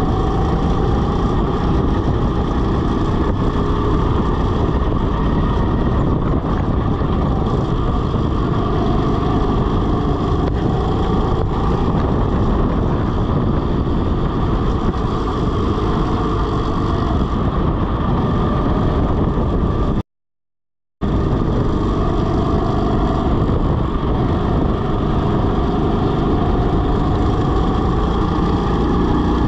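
Rental go-kart engine running at speed on a lap, its pitch rising and falling with throttle through the corners, under heavy wind noise on a chest-mounted camera. The sound cuts out completely for about a second about two-thirds of the way through.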